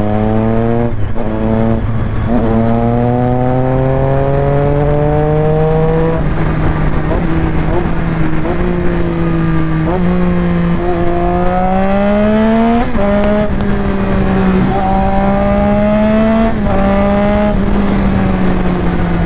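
Triumph Street Triple 675's inline three-cylinder engine, with an aftermarket SC-Project exhaust, pulling under way. Its pitch climbs and drops sharply several times as it shifts up through the gears, then eases off near the end.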